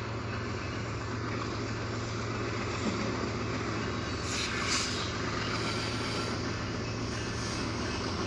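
BNSF diesel-electric freight locomotives running as a slow train approaches a grade crossing, giving a steady low engine drone. Two short hisses come about four and a half seconds in.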